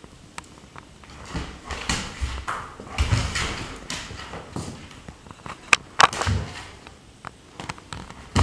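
Scuffling and rustling of a cat and a dog wrestling on a mat, irregular and close, with a few sharp clicks about six seconds in.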